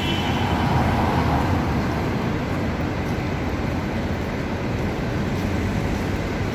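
Steady city traffic noise, a continuous rumble of passing vehicles, a little louder in the first couple of seconds.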